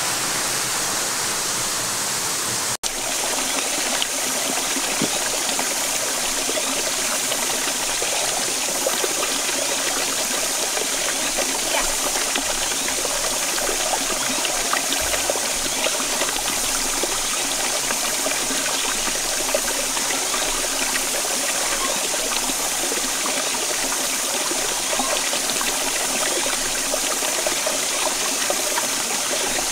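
Shallow rocky stream running over stones, a steady rush and trickle of water. The sound breaks off for an instant about three seconds in.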